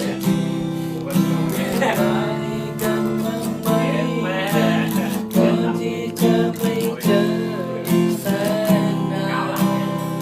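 Strummed acoustic guitar music, with a voice singing along at times.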